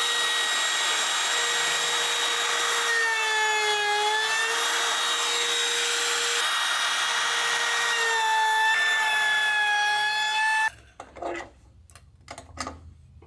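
Makita 18V cordless trim router cutting a notch in the wooden bearing bed: a steady high whine whose pitch sags twice as the bit bites into the wood. It shuts off abruptly about four-fifths of the way through, followed by a few short knocks and scrapes.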